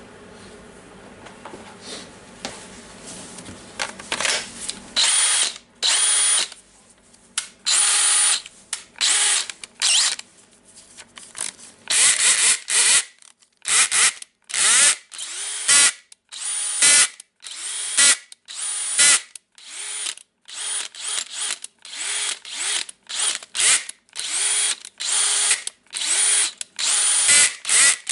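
DeWalt brushless hammer drill's motor on a test run after the controller repair, trigger pulled in about twenty short bursts starting about five seconds in. Each burst spins up and winds down, with the pulls coming faster toward the end.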